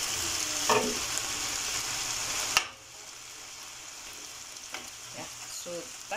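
Chicken pieces sizzling in a pan as a spoon moves them about. The sizzle is loud for about two and a half seconds, then a sharp click cuts it down to a much quieter, steady sizzle.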